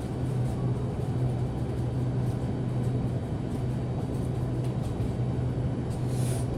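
Steady low rumble with a constant hum underneath, and a short hiss about six seconds in.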